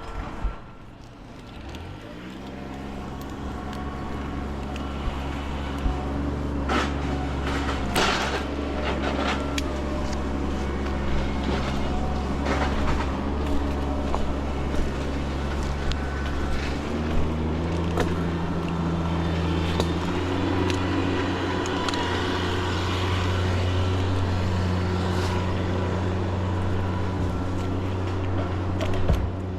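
A large engine starts up about two seconds in and runs steadily at low speed, then is throttled up to a higher, steady speed about halfway through, with occasional knocks and clatter over it.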